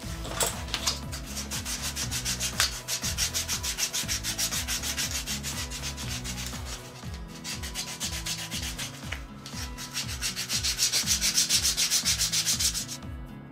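Sandpaper rubbed back and forth by hand along the cut edge of a piece of vegetable-tanned leather, sanding the edge smooth. Quick scratchy strokes, about four a second, ease off briefly about halfway and stop shortly before the end.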